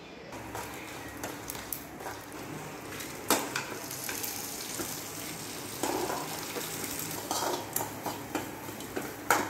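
A metal spoon stirring and scraping dried red chillies and seeds, and then grated coconut, in a metal kadai, with a light sizzle of oil as the masala ingredients roast. A few sharp clinks of spoon on pan come through, the loudest about three seconds in and near the end.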